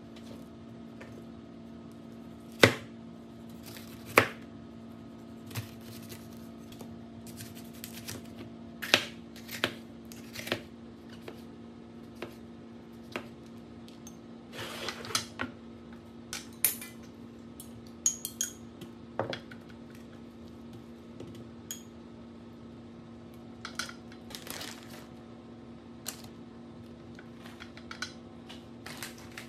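A chef's knife cuts bell peppers and mushrooms on a plastic cutting board, giving irregular sharp knocks and taps. A steady low hum runs underneath.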